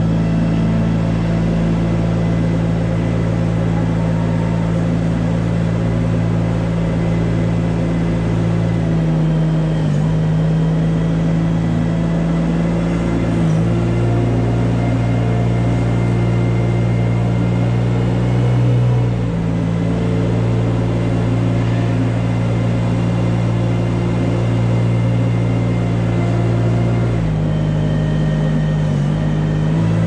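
Engine of a small farm loader running steadily as it scrapes a barn's manure alley, its pitch shifting a few times.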